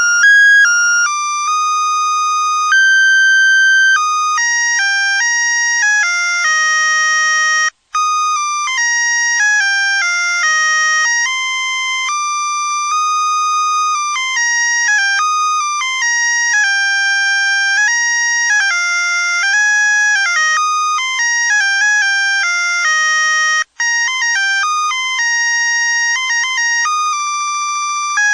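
Musical Christmas light string's sound chip playing an electronic melody in thin, beeping, ringtone-like tones. The tune cuts out for a moment twice.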